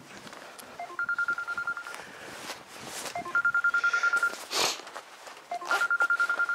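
Smartphone ringtone for an incoming call: a short low beep, then a fast-pulsing higher beep about a second long. The pattern sounds three times, every couple of seconds. Brief rustling noises fall between the rings.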